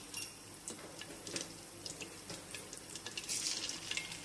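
Battered chicken pakoras frying in hot oil in a karai: a steady sizzle with many small crackling pops as more pieces are dropped in.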